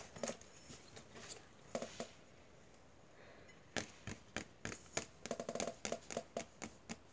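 Acrylic fake nails tapping and clicking on a hard object: a few scattered clicks, then from about halfway a quick, irregular run of taps.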